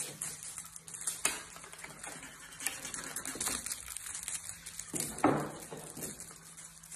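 Birman kittens scrabbling on a chair and batting at a wand toy: light taps, clicks and rustling, with one louder short sound about five seconds in.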